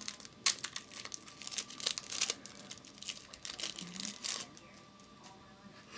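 A trading-card pack wrapper being torn open and crinkled, a run of sharp crackles and rips that thins out after about four seconds.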